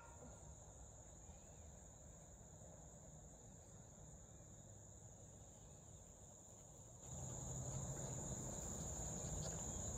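Faint, steady high-pitched insect chorus. A faint low rumble joins about seven seconds in.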